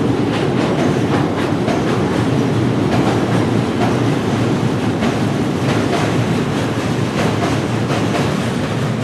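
Train running along the track with a steady rumble, its wheels clicking repeatedly over the rail joints.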